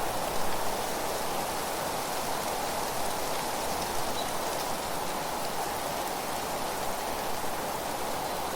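Steady natural outdoor ambience: an even, unbroken rushing noise with no distinct events.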